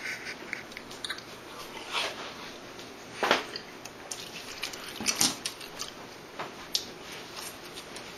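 A person eating double cheeseburgers fast, with wet chewing and biting. Scattered short smacks and clicks come at an uneven pace, the loudest about three seconds in and again around five seconds.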